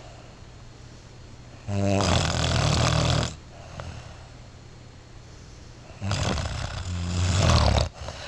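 A person snoring loudly: two long snores about four seconds apart, each lasting under two seconds, with a low buzz under a rough, breathy noise.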